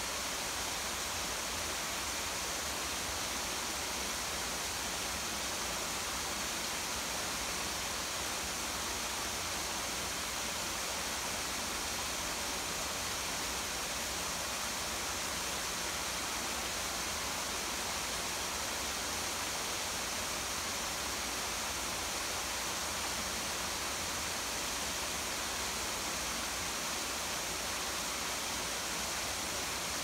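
Steady, even hiss of falling water: a small garden waterfall splashing over rocks, with rain falling.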